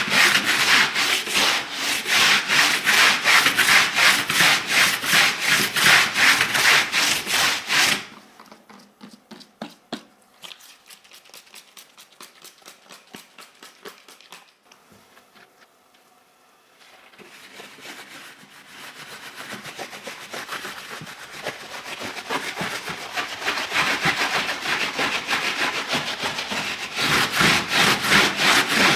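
Rapid back-and-forth scrubbing on parts of a dirty keyboard, about four strokes a second. About eight seconds in it turns much quieter and almost stops around halfway, then builds back to full loudness over the last ten seconds.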